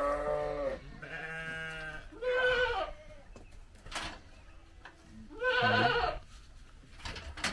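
Sheep bleating: four wavering calls of about a second each, three close together and the last after a pause of a couple of seconds.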